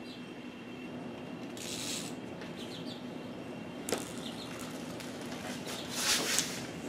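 A cat batting a small plastic bottle cap across a wooden floor: a sharp click just before four seconds in, with short scuffling rushes about two seconds in and, loudest, near the end. Faint high chirps come and go over a steady low hum.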